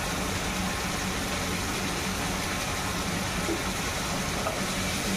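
Chicken curry simmering and bubbling in a pan over a gas burner, under a steady low hum and hiss.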